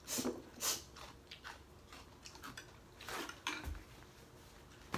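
People eating pho noodle soup: a string of short, sharp slurping and sniffing noises, spaced irregularly, with a few light taps of utensils on bowls.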